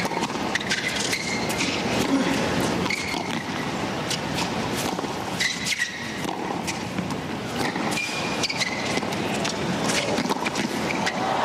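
Tennis rally on a hard court: the ball is struck back and forth at irregular intervals, with shoes squeaking briefly on the court several times, over a steady crowd hum.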